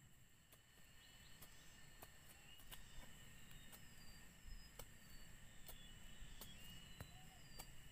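Insects singing with a steady high drone, a few short bird chirps, and light irregular knocks as a machete works at the base of a wooden stick.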